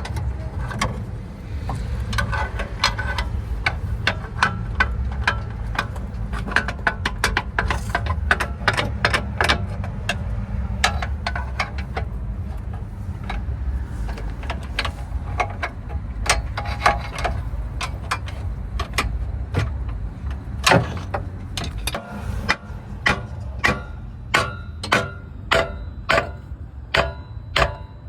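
Hand tools working on a car's suspension parts: a long run of sharp, slightly ringing metallic clicks and taps, which near the end become even strikes about one and a half a second, over a steady low rumble.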